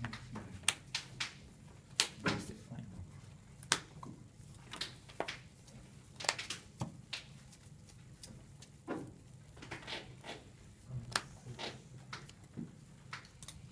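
Irregular light clicks and taps of trading cards being picked up, placed and slid on playmats on a table, over a steady low room hum.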